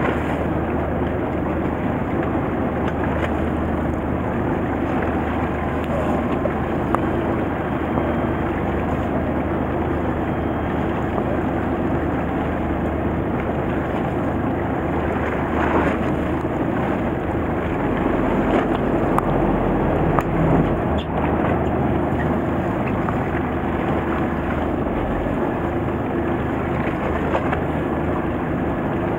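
A fishing boat's engine running steadily with a low, even hum.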